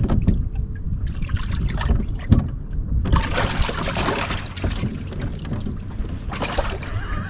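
Wind buffeting the microphone on a boat over a steady low hum, with water splashing and a single sharp knock about two seconds in.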